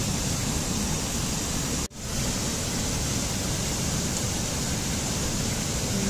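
Rushing water of a rocky forest stream cascading over small falls: a steady, dense hiss. It drops out for an instant about two seconds in.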